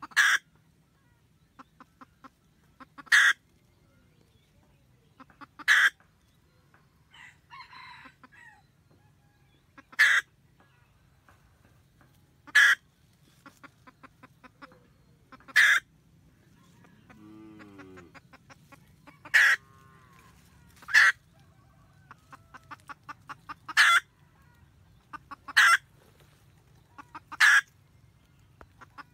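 Red junglefowl hen cackling: runs of soft quick clucks, each ending in a loud sharp note, repeated every few seconds, the call a hen uses to summon the rooster. About two-thirds of the way through there is a short falling call.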